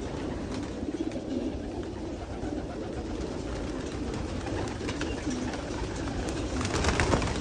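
A flock of racing pigeons cooing continuously, many birds at once, with wing flaps. A burst of wing flapping near the end is the loudest part.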